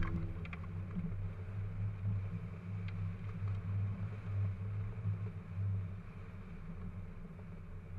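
Wind rushing over the microphone of a camera mounted on a hang glider in flight: a low, uneven rumble.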